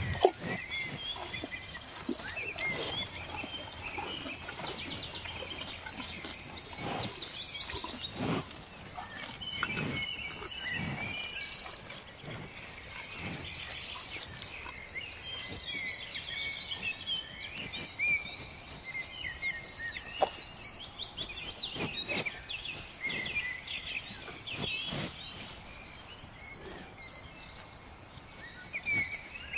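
Many small birds chirping and twittering together in a dense, continuous chorus, with a few faint knocks underneath.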